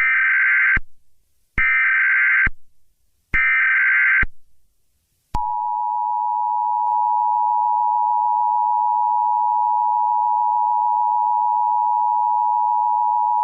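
Emergency Alert System tones. First come three short warbling bursts of SAME header data, the digital code that opens the alert. Then, about five seconds in, the two-tone attention signal (853 and 960 Hz) sounds as one steady, harsh tone, announcing a national emergency alert.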